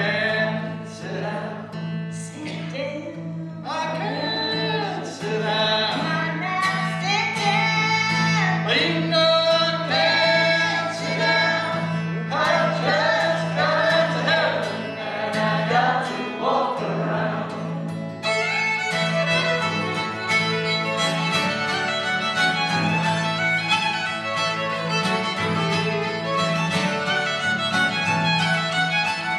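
Acoustic guitar and fiddle playing an old-time song live, with sung vocals over the music until about eighteen seconds in. Then the voices drop out and the fiddle leads an instrumental break over the strummed guitar.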